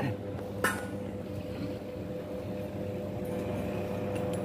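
Steady electrical hum of high-voltage substation equipment: a low drone with a higher tone above it. A single metallic clink comes about two-thirds of a second in.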